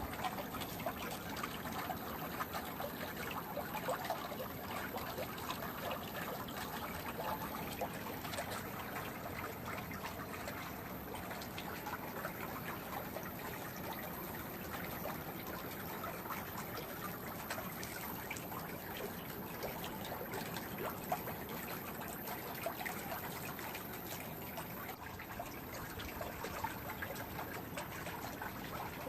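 Swimming pool water trickling steadily, a continuous fine patter of small splashes.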